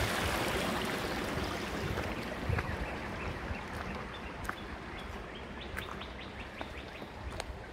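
Creek water running over stones, a steady rush that fades away over the first few seconds. Small birds chirp from about halfway in, a scattering of short high chirps.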